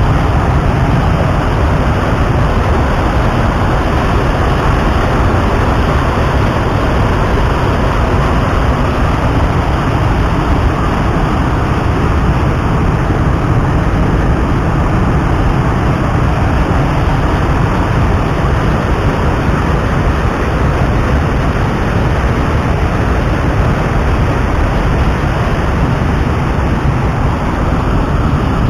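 Waterfall rushing over rocks close by: a loud, steady roar of falling whitewater.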